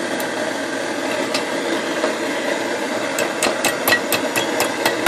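Propane torch hissing steadily on a nail held in a steel bench vise. From about three seconds in, a hammer strikes the heated nail in quick, even blows, about four a second.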